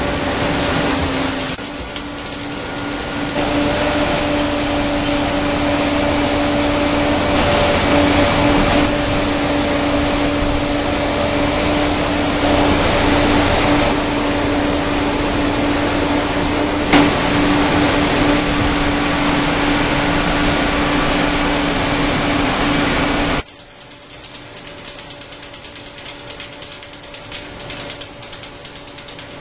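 Vacuum truck's suction blower running loud and steady with a constant droning hum as it sucks debris out of an underground vault through a large hose. About 23 seconds in, the sound cuts off abruptly to a much quieter background of faint irregular clicking.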